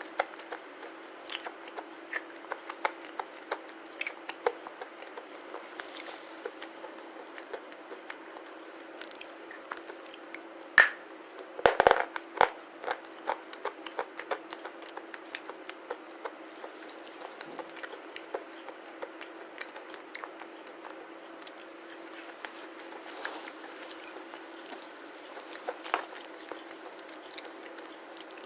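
A person biting and chewing pieces of black slate close to the microphone: repeated small crunches and crackling clicks, with a burst of loud crunching about twelve seconds in. A faint steady hum runs underneath.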